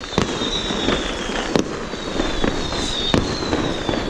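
Many fireworks going off at once: a continuous crackle and rumble with a sharp bang about every second, and thin high whistles that slowly fall in pitch.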